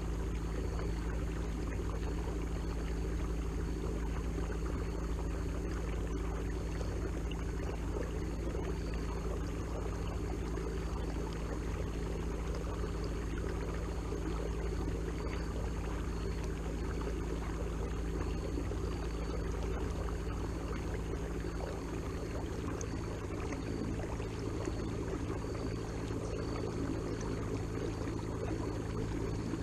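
Watersnake T24 electric trolling motor running at a steady hum, with water washing along the kayak's hull as it moves forward.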